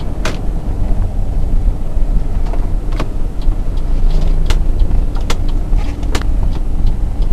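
Volkswagen Passat driving, heard from inside the cabin: a steady low rumble of road and engine noise, with about five sharp clicks at irregular moments.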